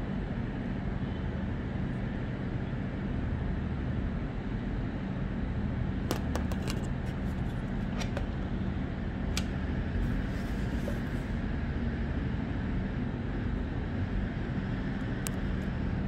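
A few light clicks and taps as a graphics card and its foam-lined box are handled, over a steady low background hum.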